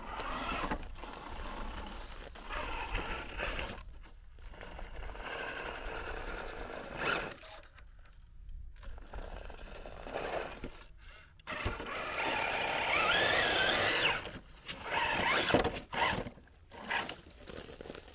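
Electric motor and geartrain of a 1/10-scale Traxxas TRX-4 RC crawler whining in stop-start bursts as it climbs over rock, the pitch rising and falling with the throttle, with tyres scrabbling on the stone.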